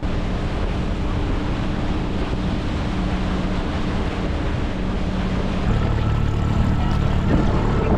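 A boat engine running steadily, with wind on the microphone and rushing water; the engine note changes and grows a little louder about six seconds in.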